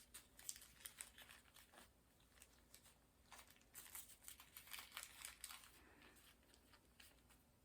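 Faint crinkling and rustling of plastic and paper being handled, with small clicks, busiest between about three and six seconds in.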